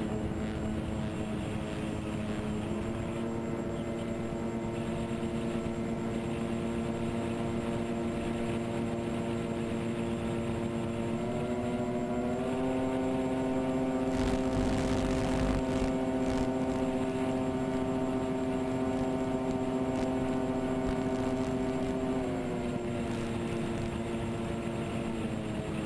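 Twin electric motors and propellers of a TwinStar RC plane, heard from the onboard camera, running with a steady hum. The pitch steps up a few times in the first half and drops back about 22 seconds in, as the throttle is raised and lowered. A rush of noise comes through around the middle.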